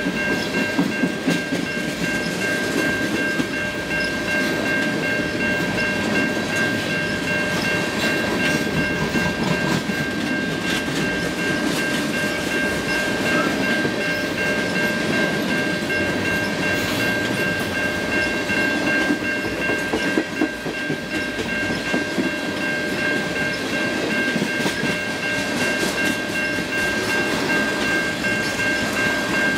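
Freight train of tank cars rolling past, steel wheels rumbling and clicking over the rails, with a steady high-pitched ringing tone running over the rumble.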